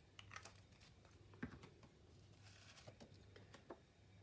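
Near silence, with a few faint light taps and rustles of paper being handled over a faint steady low hum.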